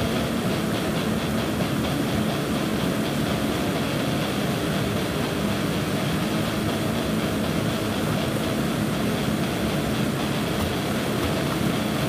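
Waterfall and white water rushing steadily into a river pool close to the microphone, an even unbroken rush.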